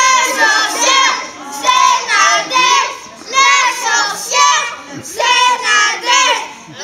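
A group of children singing together in high voices, in short phrases with brief breaks between them.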